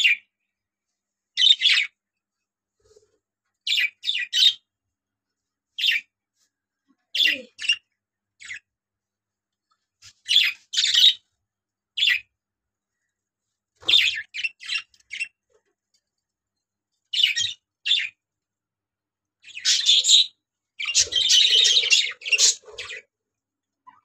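Budgerigars chirping in short separate calls with pauses between, then a denser run of chirps and chatter a few seconds before the end.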